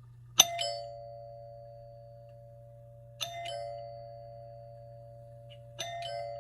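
Newly wired doorbell chime sounding its two-note ding-dong three times, about three seconds apart, each pair of tones ringing on and slowly fading. This is the sign that the transformer, push button and chime circuit are working properly.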